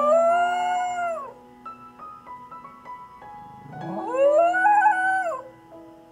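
A dog howling: one long howl that falls away about a second in, then a second long howl that rises, wavers and falls away about four seconds in.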